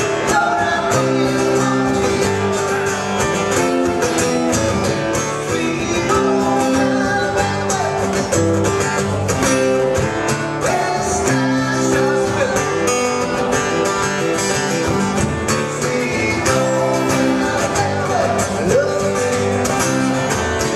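Two acoustic guitars strummed together in steady chords, with a man singing along into a microphone.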